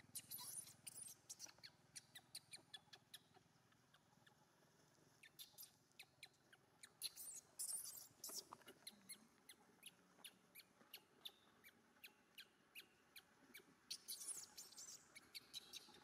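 Infant long-tailed macaque crying: rapid, high-pitched squeaks at several a second, coming in bouts with short pauses between, the cries of a hungry baby wanting milk from its mother.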